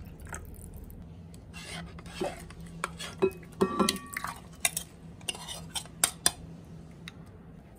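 Metal cutlery clinking and scraping against dishes, a string of sharp clinks over a few seconds, one or two ringing briefly. A steady low hum runs underneath.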